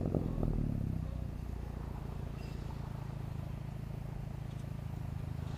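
Turbocharged 2008 Chevrolet Cobalt SS's four-cylinder engine with a turbo-back exhaust, coming down from a brief high flare in the first second and settling into a steady, even idle.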